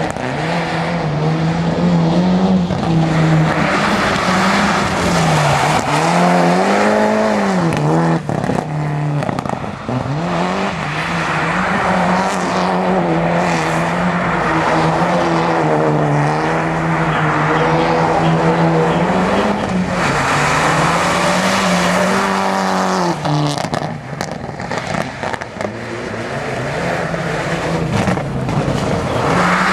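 Mitsubishi Lancer Evolution rally car's turbocharged four-cylinder engine revving hard as the car slides through turns on a wet, slushy surface, the engine note climbing and falling again and again with the throttle. Underneath is a steady hiss of tyres and spray. The engine drops back briefly a little past two-thirds of the way through, then picks up again.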